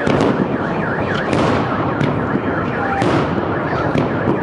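Aerial firework shells bursting overhead, with sharp bangs about once a second over continuous crackling. Under them, a car alarm sounds a rapid, repeating down-and-up sweeping tone.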